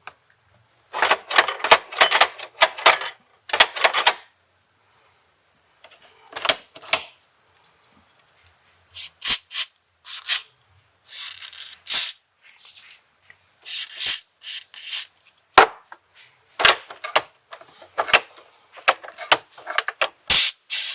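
Irregular clicking and rattling of small dashboard mechanisms being worked by hand, with short hisses of spray lubricant, twice near the middle, as the moving parts behind the dashboard are lubricated.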